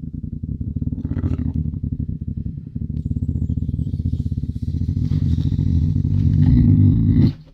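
Lynx growling: a deep, throaty rumble of rapid pulses that grows louder and stops abruptly near the end.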